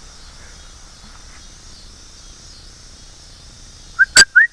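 Steady high chirring of insects, like crickets. Near the end come three very loud, short rising chirps in quick succession, with a sharp click among them.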